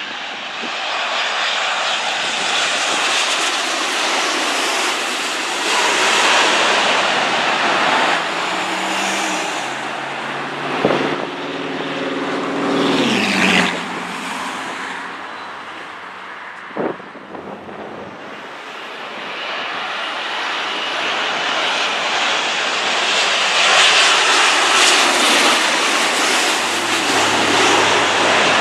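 Jet airliner passing close by, a loud roar with a whine that falls in pitch as it goes past, then fades; jet noise builds again over the last several seconds.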